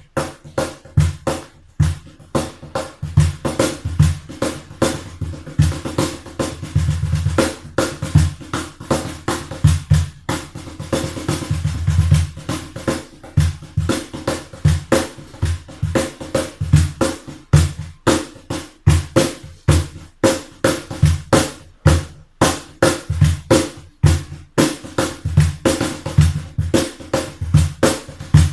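Homemade cajon played by hand in a steady rhythm, mixing deep bass thumps with sharp slaps, with a couple of fast runs of strokes in places.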